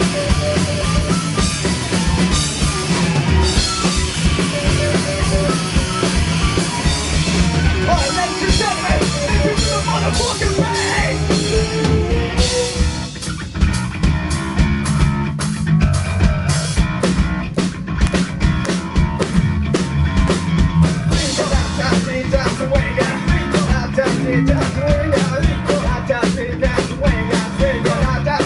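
Rock band playing: drum kit and electric guitar. About 13 seconds in, the music thins briefly, then comes back with sharp, regularly spaced drum hits.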